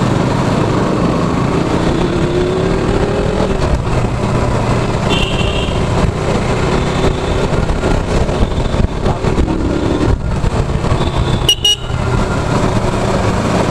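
Motorcycle engine running as the bike rides along, its pitch rising gradually about two seconds in as it picks up speed. A couple of short horn beeps come about five seconds in and again near the end.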